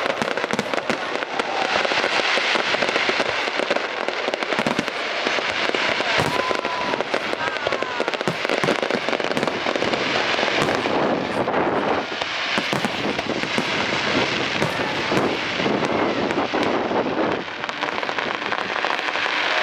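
Fireworks display: a dense, continuous crackling and popping of many shells and crackle effects bursting at once.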